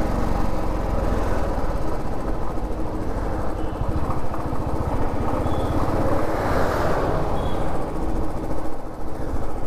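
Motorcycle engine running steadily while riding at low speed in traffic, with road and wind noise on the rider's microphone; a swell of louder noise about six to seven seconds in.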